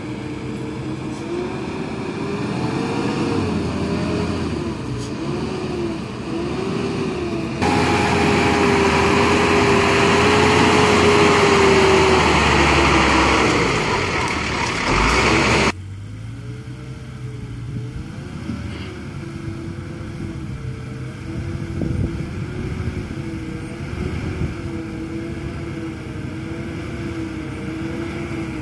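Diesel engine of a Hino FM truck loaded with marble pulling slowly over a rough mountain track, its pitch rising and falling with the throttle. About a third of the way in it suddenly becomes louder and hissier for about eight seconds, then drops back abruptly.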